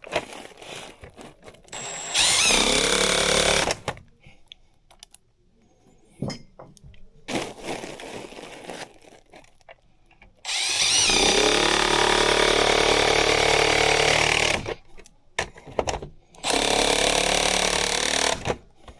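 Power drill driving screws, run in four bursts; the longest lasts about four seconds. Each burst starts with a whine that changes pitch as the motor spins up.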